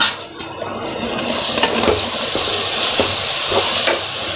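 Chopped tomatoes and fried onion masala sizzling in hot oil in a kadai as a metal spoon stirs and scrapes them. A few spoon knocks come first; about a second in, the sizzle grows louder and stays steady as the stirring turns the tomatoes into the hot oil.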